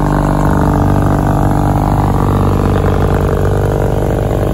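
Motorcycle engine running at idle. Its note changes about half a second in, then settles into a steady, even throb.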